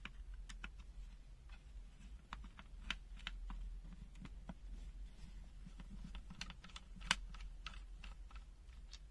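Irregular small clicks and taps of the NJTY GY9905T multimeter's plastic case and circuit board being handled and opened up, with one sharper click about seven seconds in.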